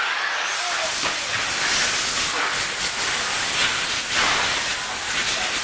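Electric 2WD RC cars racing on an indoor track: a steady hiss of motors and tyres, with a few brief swells as cars pass close.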